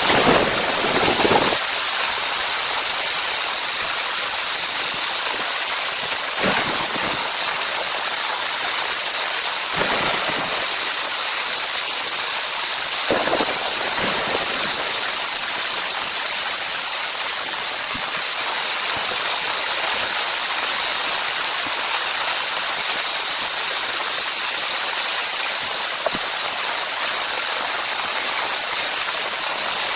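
Steady rain falling as an even hiss, with a few brief dull knocks early on and at about 6, 10 and 13 seconds.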